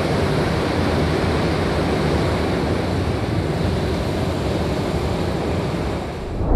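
MR-73 rubber-tyred metro train heard from inside the car as it runs at speed through the tunnel: a steady, loud rolling rush with a deep rumble underneath.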